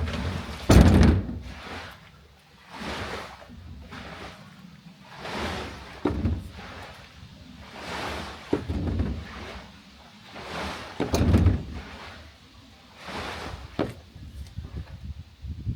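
Rinse water swishing around inside a plastic IBC rainwater tank as the tank is rocked and moved, in surges every two to three seconds. There are hollow thuds from the tank and its cage, the loudest about a second in.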